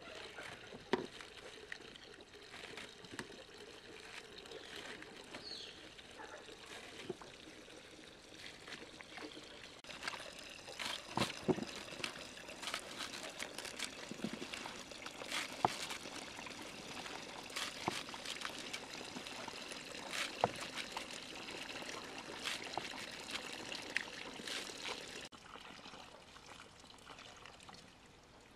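Water trickling and pouring, with scattered sharp knocks and taps that come thicker in the middle stretch.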